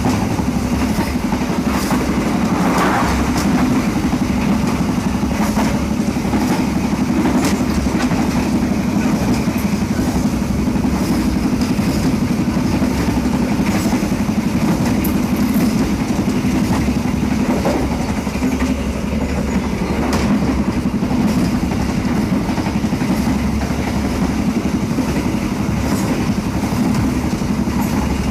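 Railway passenger carriage bogie running on the track: a steady, loud rumble with scattered sharp clicks.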